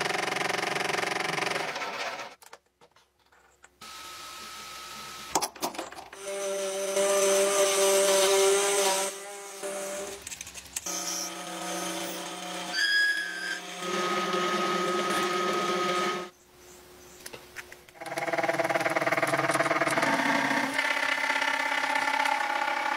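Machine tools cutting brass: lathe and gear-cutting spindles running in several short passages, each a steady whine at its own pitch, broken by brief quiet gaps where the clips change.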